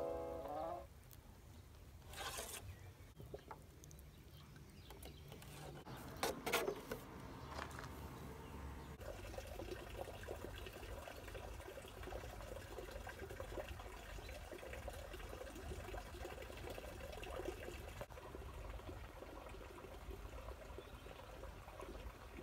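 Water trickling and pouring, with a few short sharp knocks in the first several seconds. From about nine seconds in, it becomes a steady, fuller wash of sound.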